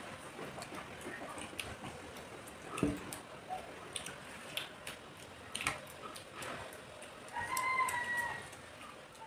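People eating rice by hand from plates: soft scattered clicks and smacks of fingers on the plates and of chewing. About seven and a half seconds in, a short pitched call sounds in the background for under a second.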